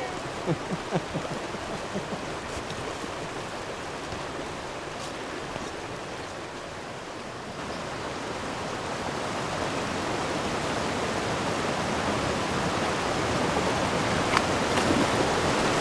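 Shallow brook rushing over rocks in a riffle: a steady water rush that grows gradually louder through the second half.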